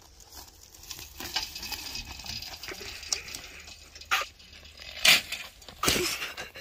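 Gritty crunching and rustling of movement over a dry dirt track, with sharper thumps about four, five and six seconds in.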